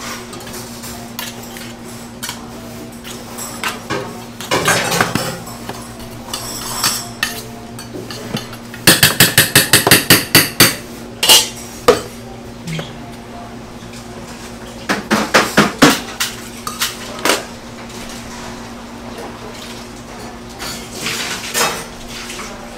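Metal utensils clinking and tapping against stainless steel bowls and food bins while bibimbap bowls are filled with toppings. There are scattered clinks throughout, a fast run of about ten sharp taps around nine to eleven seconds in, and another quick cluster around fifteen seconds, over a steady low hum.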